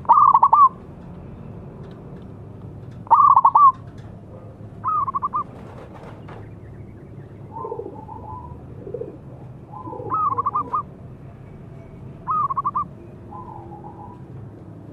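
Zebra dove (perkutut) cooing: five short phrases of rapid, stuttering coos spaced a few seconds apart, with fainter, slightly lower coos between them.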